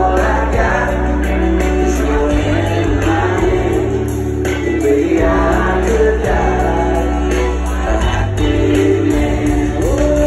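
Live country band playing loud through a concert PA, with singing over a steady drum beat and heavy bass, heard from within the crowd.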